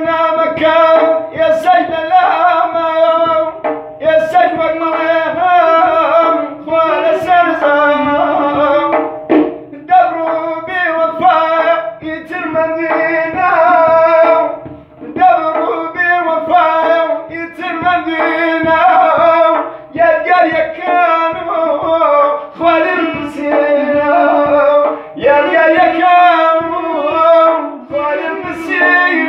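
A man singing a song in long, bending phrases over steady instrumental accompaniment with light drumming.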